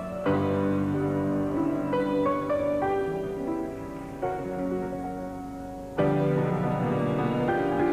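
Solo piano music playing a lively melody over chords, with a loud chord struck just after the start and another about six seconds in, after a softer passage.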